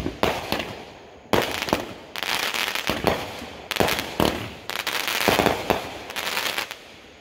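Consumer multi-shot aerial fireworks cake firing shot after shot: sharp bangs, each followed by crackling, about one or two a second, dying away near the end.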